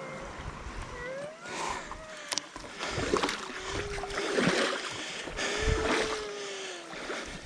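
Stand-up paddleboard paddle strokes through water, about four swishing splashes spaced roughly a second and a half apart. Faint gliding tones sound over them.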